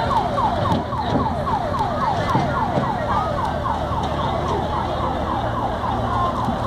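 Emergency-vehicle siren sounding in a fast yelp, a steady run of about four falling sweeps a second.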